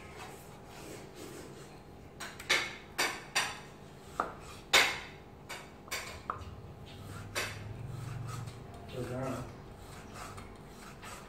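Kitchen knife slicing raw pork on a wooden cutting board: about ten sharp, irregularly spaced knocks as the blade strikes the board, starting about two seconds in.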